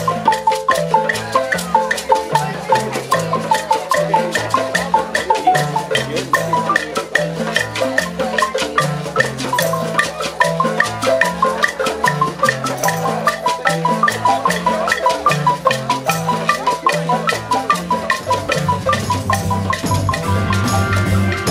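Background music with a marimba-like mallet melody over a stepping bass line; near the end it gives way to a fuller, sustained-sounding track.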